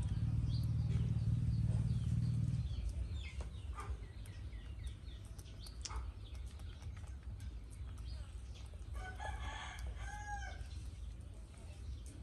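A rooster crows once, about nine to ten seconds in, with faint high chirps of small birds before it. A low hum is loudest during the first couple of seconds.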